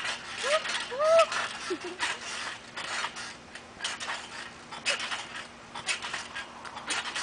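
Trampoline springs and mat creaking and squeaking with each bounce as someone jumps on it, a string of short sharp creaks with a couple of brief pitched squeaks in the first second or so.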